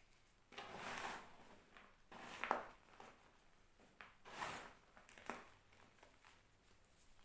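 Reformed gym chalk blocks being crushed, crunching and crumbling in four separate crunches about a second or more apart.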